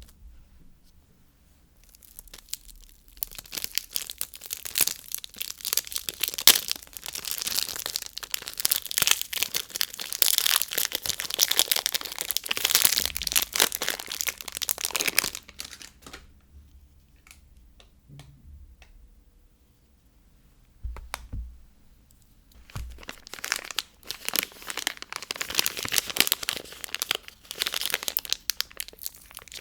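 Soap wrappers being torn open and crinkled by hand. Dense crackling runs for about thirteen seconds, then a quieter stretch with a few clicks and soft knocks, then more crinkling near the end.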